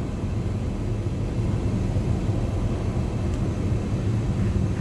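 Steady low rumble of road and engine noise inside the cabin of a moving truck.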